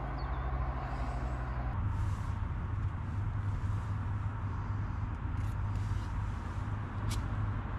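Steady low rumble of road traffic from a busy roundabout close by. A couple of light clicks come through it, about five and seven seconds in.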